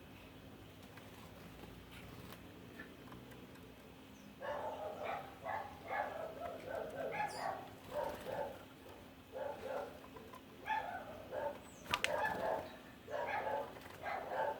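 An animal calling in quick, repeated short bursts, starting about four seconds in, with a few thin high chirps over it.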